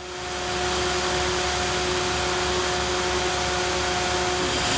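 A farm vehicle running, heard from inside its cab: a steady, even whooshing hiss with a few steady hum tones over it.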